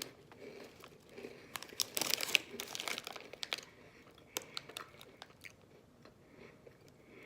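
Crunchy Mini Cheddars biscuits being chewed close up, with scattered crunches and a denser, louder stretch of crackling about two to three and a half seconds in.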